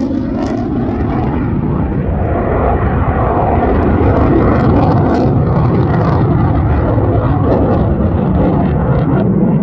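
Jet noise from a Panavia Tornado's two RB199 turbofans during a display pass: a loud, deep, steady roar that grows a little louder about four seconds in.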